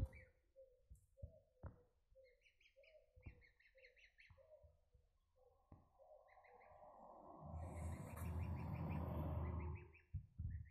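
Goslings peeping in short repeated high chirps, with lower short calls between them. From about six seconds a low rumbling noise swells, becomes the loudest sound, and cuts off abruptly near the end.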